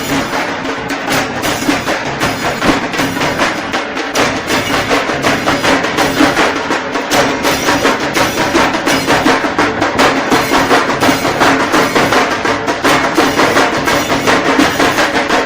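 Procession drums beaten fast and continuously: a dense, unbroken stream of sharp strikes.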